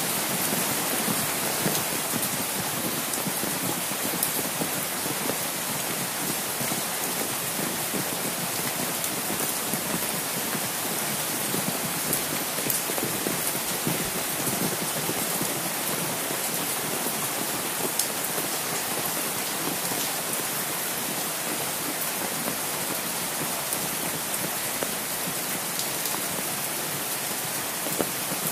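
Steady rain falling, with many single drops striking sharply close by on an umbrella held overhead.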